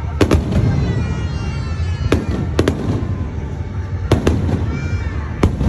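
Fireworks display: aerial shells bursting in a string of sharp bangs, several coming in quick pairs, over a steady low rumble.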